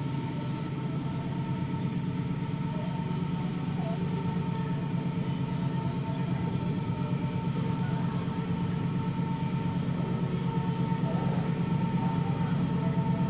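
A steady mechanical drone with a constant high tone above it, slowly growing louder.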